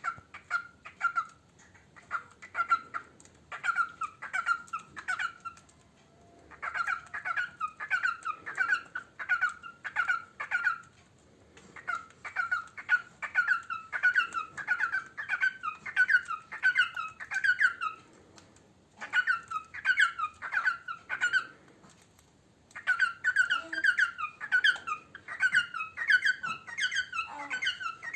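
Male cockatiel singing: runs of quick, repeated squeaky chirps, about three or four notes a second, in phrases of a few seconds with brief pauses between them.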